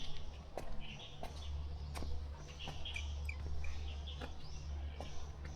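Small birds chirping in short, high calls, over steady footsteps on a hard walkway and a constant low hum.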